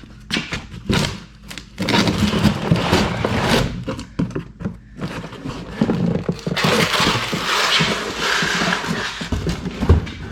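Metal tools and engine parts clinking, knocking and scraping while a V6 block is taken apart, with a loud harsh rushing noise for about three seconds from the middle on.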